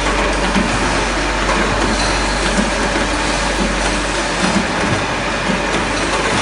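CNC pipe bending machine running: a loud, steady mechanical noise with a low hum and light irregular knocks.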